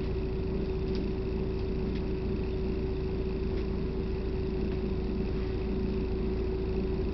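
Steady engine hum heard inside a vehicle's cabin, a constant drone with a low rumble beneath it.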